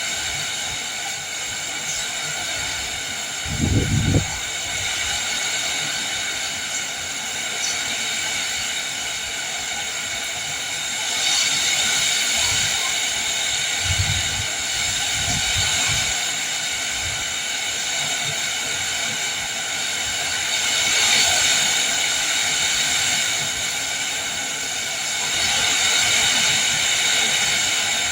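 Rain falling in wind: a steady hiss of rain that swells several times. There is a short, low rumble about four seconds in, the loudest moment, and weaker low rumbles around the middle.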